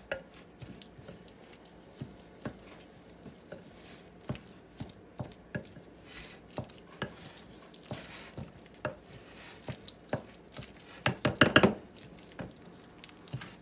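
Wooden spoon stirring a thick shredded-chicken and cream cheese filling in a glass bowl: irregular soft knocks and scrapes against the glass, with a quick flurry of louder knocks near the end.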